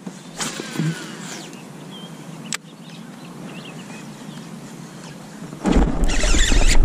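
Quiet open-air lake ambience with birds chirping faintly and a few small clicks. About five and a half seconds in, a loud rushing noise heavy in the lows sets in and continues, like wind buffeting the microphone or the camera being jostled.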